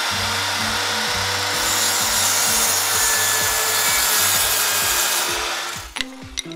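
Sound effect of a saw cutting through wood: a loud, steady noise that stops about six seconds in, over background music with a steady beat. A couple of sharp knocks follow near the end.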